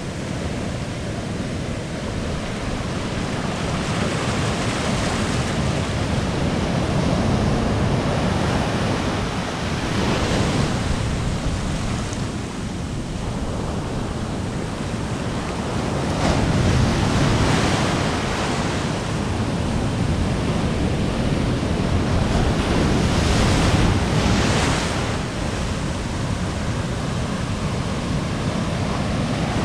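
Ocean surf breaking right at the shoreline and foaming water washing around the shallows, a continuous rush that swells louder every several seconds as each wave breaks.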